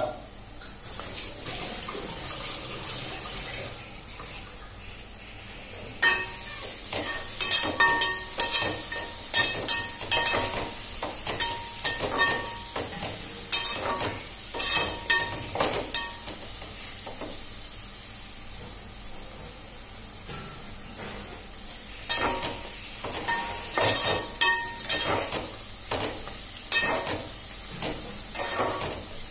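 Fenugreek leaves and onions frying in an aluminium pot with a steady sizzle. A steel spoon stirs and scrapes against the pot in two spells of rapid metallic clinks, one starting about six seconds in and another after about twenty-two seconds.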